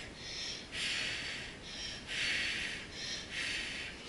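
A child blowing a run of short puffs of breath at the sail of a small toy sailboat, about six breathy gusts with short gaps between them, trying to push it along the water.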